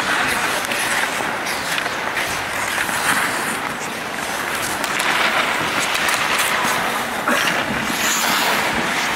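Ice hockey skates scraping and carving on the ice, a steady hiss that swells and eases, with scattered sharp clacks of sticks and puck.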